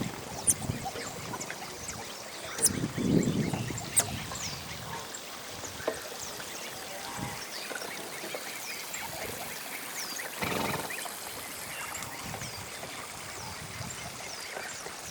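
Birds calling: a low, duck-like quacking call about three seconds in and again about ten seconds in, over many short, high, downward chirps repeated throughout, with a steady trickle of water behind.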